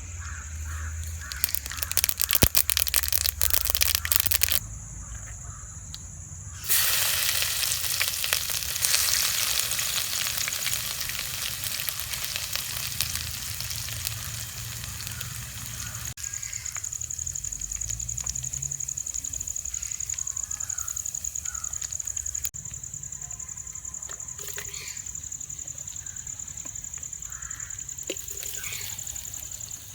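Food frying in hot oil in a pan. A short crackling sputter comes near the start, then about seven seconds in a loud sizzle sets in abruptly and slowly dies down.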